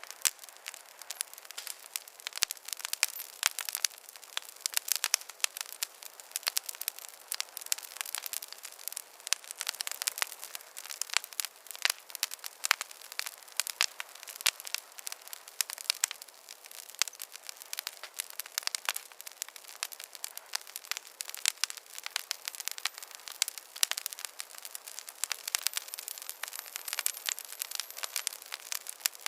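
Wood fire crackling in a fireplace: a dense, irregular run of sharp pops and snaps over a faint hiss.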